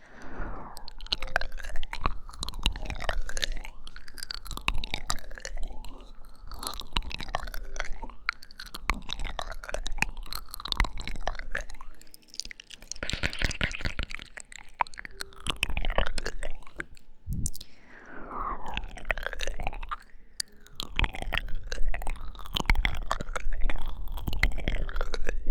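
Close-miked wet mouth sounds: kisses, lip smacks and tongue clicks in a dense, continuous stream, with a couple of short breaks.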